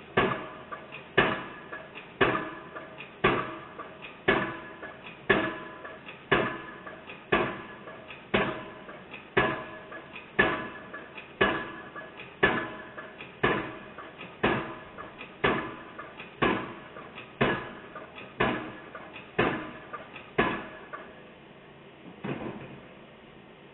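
Hydraulic pile hammer on an excavator-mounted piling rig driving a foundation pile for railway overhead line equipment. It strikes steadily about once a second, each blow sharp with a brief metallic ring. The hammering stops about three seconds before the end, followed by a couple of lighter knocks.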